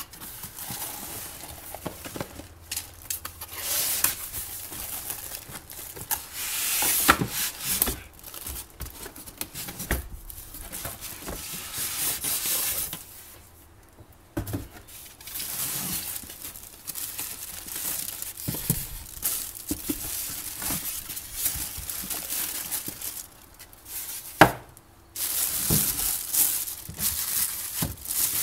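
Packaging of a new pie maker being handled: plastic wrapping and cardboard crinkling and rustling in irregular bursts, with scattered knocks.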